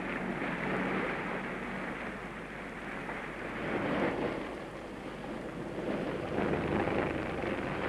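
Rushing sea and boat noise on an old wartime film soundtrack, steady and hissy, swelling about four seconds in and again near the end. A faint low hum fades out about two seconds in.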